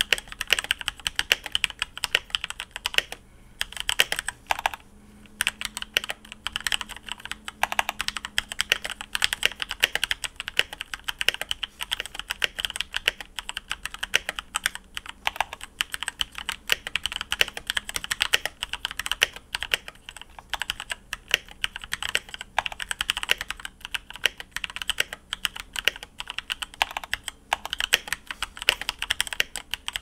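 Typing on a stock Keychron K4 mechanical keyboard with Gateron Brown tactile switches, a plastic case and lubed stabilisers: a steady stream of key clacks with two brief pauses, about three and five seconds in.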